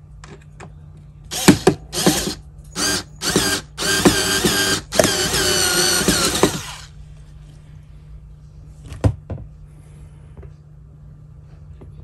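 Cordless power screwdriver driving a screw to mount a pushbutton switch bracket on a wall: several short bursts, then two longer runs with a whining motor pitch, stopping about six and a half seconds in. A single sharp click comes a few seconds later.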